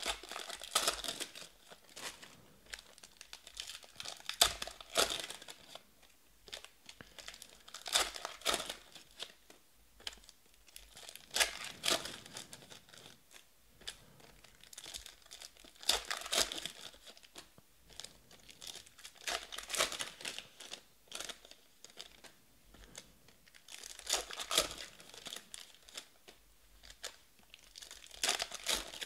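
Trading-card pack wrappers from 2020 Panini Prizm Draft football being torn open and crinkled by hand, one pack after another. Bursts of crackling come about every four seconds, with quieter gaps between.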